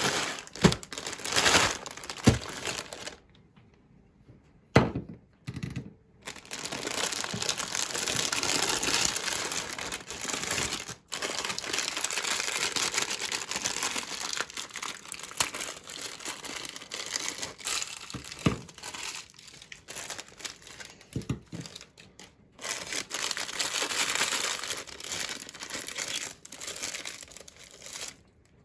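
Plastic packaging crinkling and rustling in long stretches, with a few sharp knocks in between.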